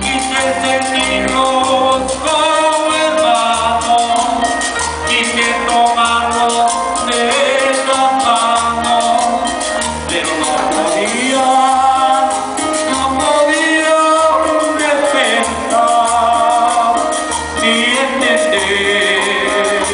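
Colombian cumbia band music: a melody line over a steady, rhythmic bass, during a stretch of the song without sung lyrics.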